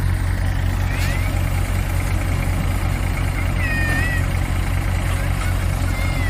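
Tractor engine running steadily, powering a paddy thresher being used to winnow rice: a continuous low drone with a fast even pulse and the whir of the machine. A few short high chirps come through about one, four and six seconds in.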